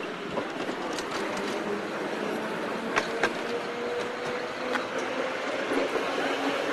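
Narrow-gauge electric tram running along the track: a steady rattling run with a faint motor whine, and sharp wheel clicks on the rails about a second in and twice in quick succession near the middle.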